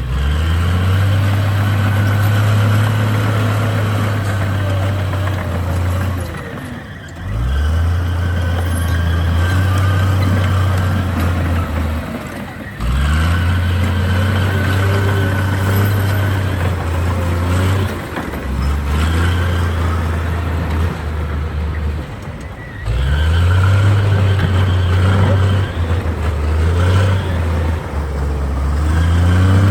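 Heavy diesel engine of construction machinery running under load, revving up sharply, holding, then easing off, in repeated cycles about every five to six seconds.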